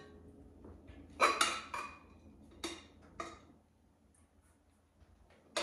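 A serving spoon clinking against crockery as rice is spooned onto a plate: about five light knocks over two seconds, the first three close together.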